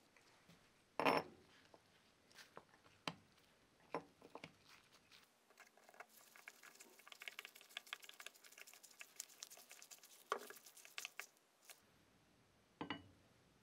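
Scattered light knocks and clicks of hand work on parts and tools, with the loudest knock about a second in and a run of rapid small ticks and rustling in the middle.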